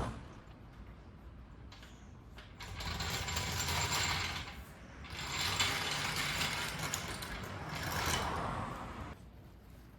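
A garage floor jack being worked to lower the rear of the car off its stands: a knock, then two long stretches of mechanical rattling and ratcheting noise.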